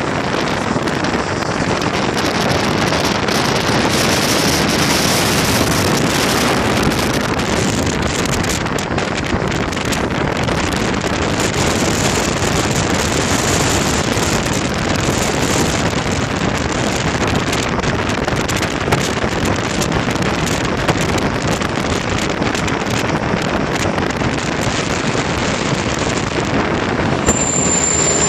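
Steady rushing wind noise on the microphone mixed with road traffic. Near the end a coach bus passes close by, with a high thin squeal.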